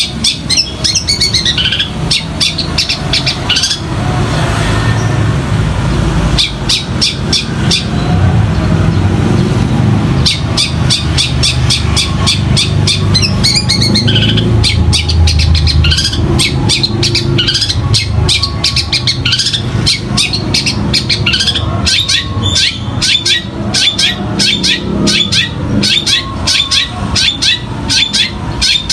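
Long-tailed shrike (cendet) singing a fast, chattering run of sharp chirps and whistles, mimicking the squabbling calls of fighting tree sparrows, over a steady low rumble.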